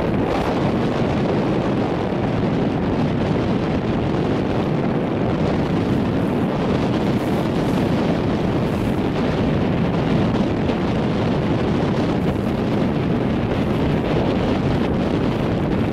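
Strong wind buffeting the microphone, a steady loud rush over choppy open water.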